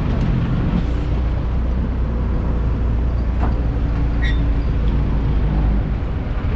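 Truck engine running with a steady low drone and road rumble as the truck drives, heard from up on its open back.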